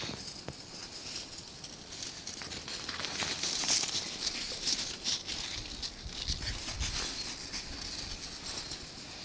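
Irregular crunching footsteps in snow, a crackly patter of many small steps.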